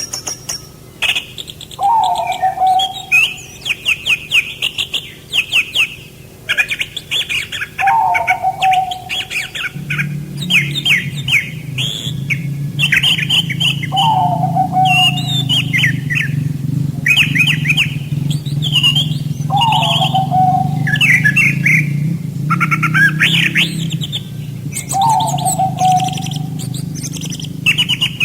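Songbirds singing in quick repeated chirping trills, with a lower downward-sliding whistle about every six seconds. A low steady hum sounds under them from about a third of the way in until near the end.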